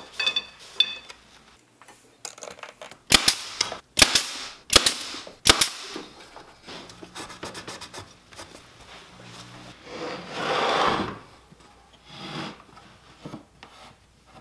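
Nail gun firing four sharp shots, a little under a second apart, about three to five seconds in, fastening the glued shelf frame. Near the end a cloth rubs on the wood.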